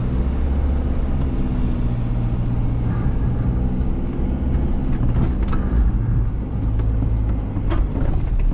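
Isuzu D-Max's diesel engine running under load as the ute drives through churned-up soft beach sand, heard from inside the cab as a steady deep rumble. A few short knocks from the vehicle jolting over the ruts come about five seconds in and near the end.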